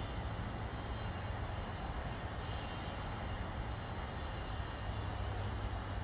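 Steady low rumble of distant engine noise, with a faint hiss over it and a brief rustle about five seconds in.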